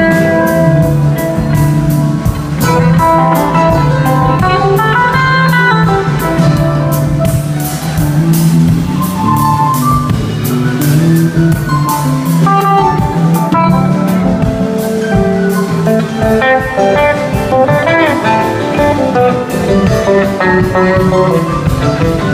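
Live rock band playing an instrumental passage: electric guitar note runs over bass guitar, drum kit and keyboards, loud and continuous.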